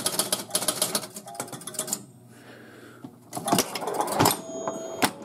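1973 Gottlieb Home Run electromechanical pinball machine in play. Its mechanism clicks rapidly for about two seconds, goes quieter, then gives several separate sharp knocks over the last two seconds.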